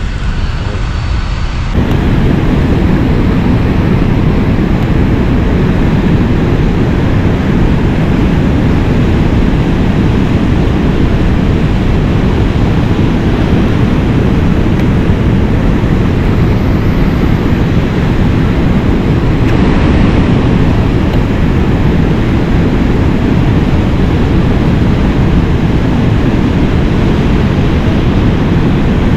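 Water pouring over a low weir and churning into whitewater below it: a loud, steady rush that comes in suddenly about two seconds in.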